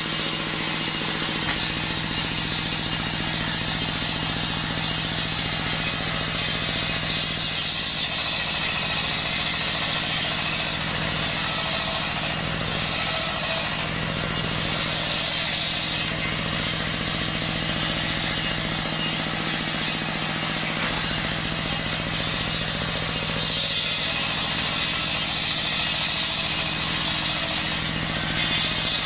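Belt-driven circular sawmill blade (serkel) with its engine running steadily, cutting lengthwise through a waru log. The cutting noise swells in several stretches over the steady engine drone as the log is fed into the blade.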